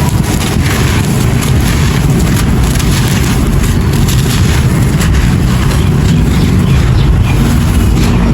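Dry clay pot pieces being crushed and crumbled: a dense, continuous gritty crunching with a heavy low rumble.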